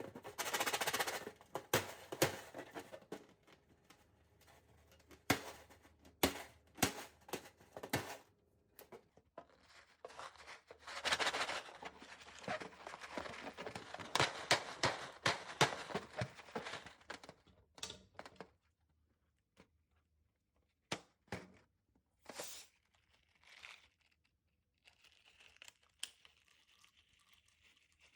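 Slime being handled and mixed: irregular sticky crackles and pops, with two longer runs of dense crackling and sparser clicks later on.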